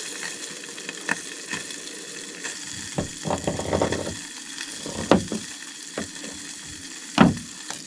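Trout sizzling in a covered frying pan on a small gas camp stove, a steady hiss, with a few knocks and taps from a knife cutting an avocado on a plastic tailgate. The loudest knock comes near the end.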